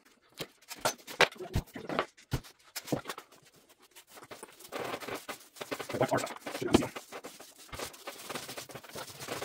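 A paint roller spreading a thick coat of rubberized waterproof sealant over plywood, with a few sharp clicks and knocks in the first few seconds as the can and roller are handled.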